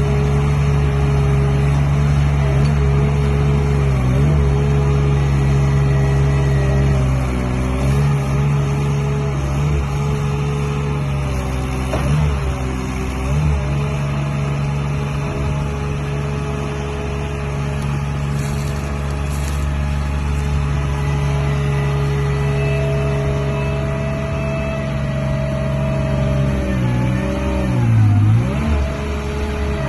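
Mini track loader's 25 hp Perkins diesel engine running steadily at speed, its pitch sagging briefly several times and most deeply near the end. A higher steady whine joins for a few seconds past the middle.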